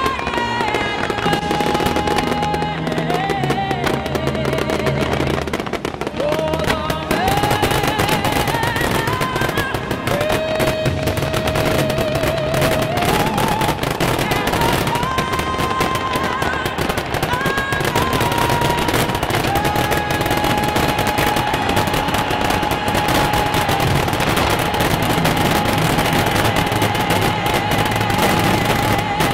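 Aerial fireworks shells going off in a rapid, continuous barrage, many reports a second, over music whose melody is held on long notes with vibrato.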